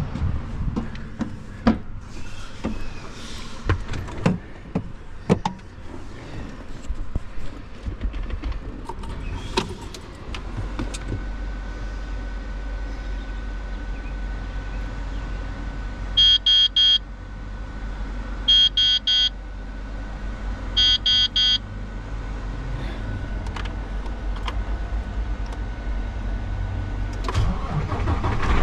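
Scattered knocks and clanks, then a Mack semi-truck's diesel engine idling with a low steady rumble from about a third of the way in. Over the idle comes a faint steady tone and three short bursts of rapid electronic warning beeps from the dashboard.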